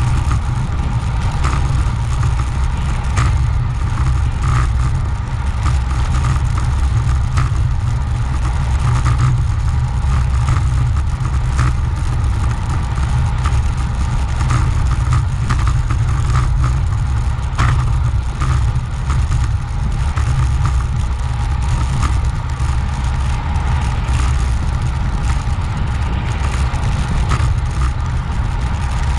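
Steady wind rush buffeting the microphone, with tyre and road noise, from a road bike ridden at speed.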